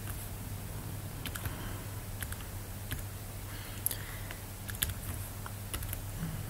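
A few scattered light clicks and taps at a computer, about one a second, over a faint steady low hum.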